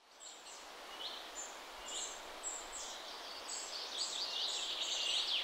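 Several small birds chirping and trilling, many short high calls over a faint outdoor hiss. The sound fades in at the start and the calls grow busier in the second half.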